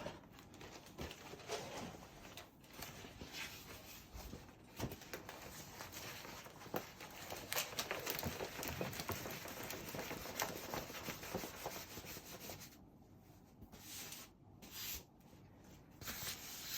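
Large diamond painting canvas, covered in its plastic film, rustling and crinkling as it is unrolled and rubbed flat by hand, with scattered small clicks and taps.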